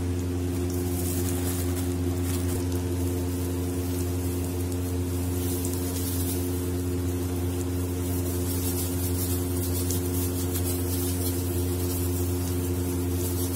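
Steady low mechanical hum made of several fixed tones, with a faint fine crackle above it from a patty frying in oil in a non-stick pan.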